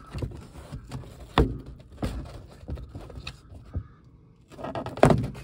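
Plastic clicks and knocks as a Honda Civic's overhead map-light assembly is worked loose and pulled out of the headliner by hand, its clips popping free. The loudest knock comes about a second and a half in, with another short clatter near the end.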